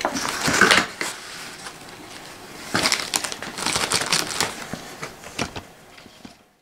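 Cardboard packaging and the plastic wrap around a vacuum sealer rustling and crinkling as they are handled, in bursts in the first second and again around the middle, then dying away to silence.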